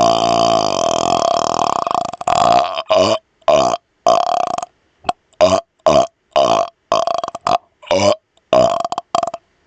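A man burping on command: one long, drawn-out burp that ends about two seconds in, then a quick string of short burps, about two a second, with silent gaps between them.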